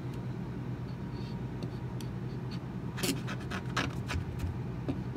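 Digital caliper being handled and its depth rod set down into a pocket cut in MDF: a few light clicks and scrapes about three to four seconds in, over a steady low hum.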